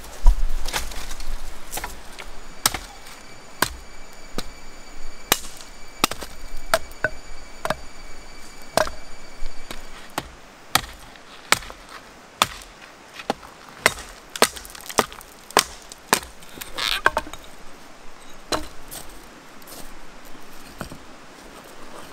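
Small hatchet chopping a wooden branch: a series of sharp, separate strikes at about one a second, after a heavy thump just at the start.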